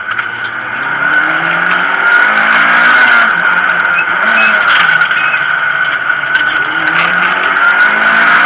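Mitsubishi Lancer Evolution X rally car's turbocharged four-cylinder engine heard from inside the cabin, accelerating hard and shifting up through its five-speed manual gearbox: the revs climb three times, dropping back at each shift. A steady high whine sits under the engine.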